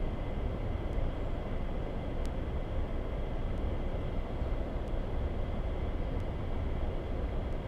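Steady low rumbling background noise outdoors, with a few faint clicks.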